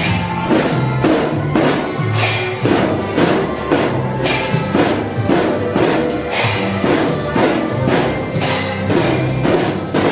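Children's percussion band playing snare drums, tambourines and hand cymbals in a steady beat, with tambourine jingles prominent, over a tune with a moving bass line.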